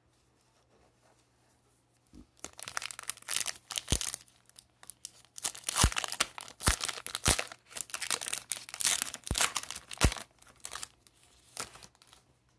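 Foil wrapper of an Upper Deck hockey card pack being torn open and crinkled by hand. It starts about two seconds in and goes on for some nine seconds of crackling, with several sharp snaps.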